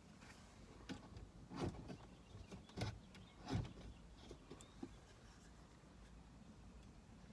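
Quiet handling noise from a small object worked in the hands: a few clicks and short rustles, the loudest in the first half, then fainter ticks.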